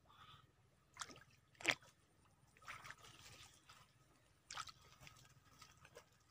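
Faint small splashes and drips of water as a fishing line and its bait are worked in a pond: a few short plops, the sharpest a little under two seconds in.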